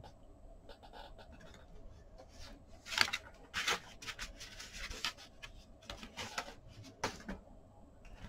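Soft handling noises of paper and card: quiet rubbing and rustling, with a few brief louder rustles about three seconds in and again around six and seven seconds.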